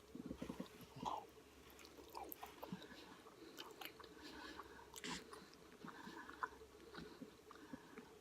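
Soft chewing and small mouth clicks of someone eating a chicken and brown rice bowl, in scattered short sounds.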